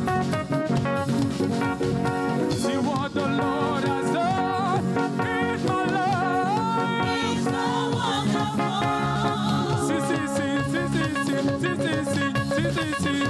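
Live gospel praise music: a church band with drum kit and guitar playing steadily, with singing coming in a few seconds in.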